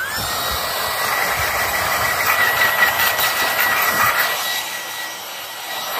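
Cordless battery-powered air gun (electric blower) spinning up at the start and running steadily, a high-pitched motor whine over rushing air as it blows dust off the guitar.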